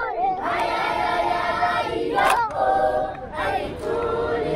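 A choir singing, several voices holding long notes together.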